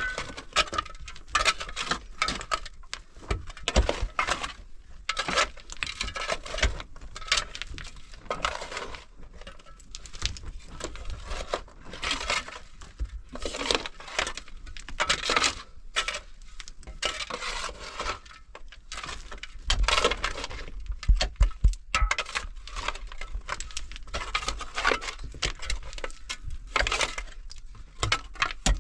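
Irregular clicks, taps and clinks of hard objects being handled, several a second, with a few heavier knocks about two-thirds of the way through.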